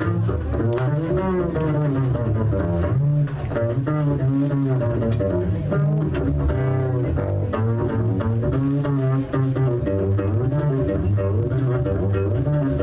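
Upright double bass playing an unaccompanied solo: a continuous line of low notes, one running into the next.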